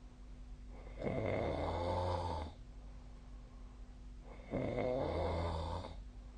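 A person snoring while asleep: two snores about three and a half seconds apart, each lasting about a second and a half, with quiet pauses between them.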